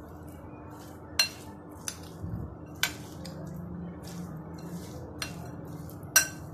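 A metal spoon stirring chopped vegetables and mashed potato in a glass bowl, with five sharp clinks of the spoon against the glass, the loudest about a second in and near the end.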